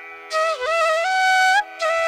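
Background music: a flute melody with bending, sliding notes over a steady drone, pausing briefly at the start and again near the end.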